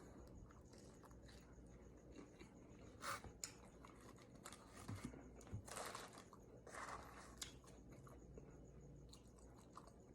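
A person chewing a mouthful of steak-and-shrimp taco, faint and close: soft wet chewing with a few louder bites about three and about six to seven seconds in.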